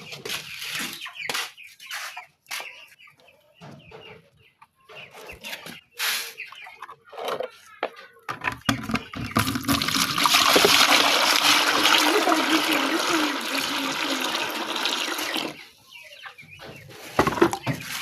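Chickens clucking, with scattered knocks and handling sounds, then liquid pouring steadily for about six seconds from about ten seconds in.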